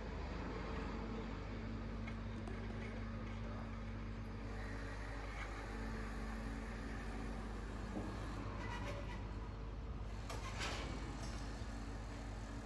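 Construction site ambience: a steady low drone of machinery and traffic, with a faint held engine-like tone that comes and goes. A few short knocks sound in the last third.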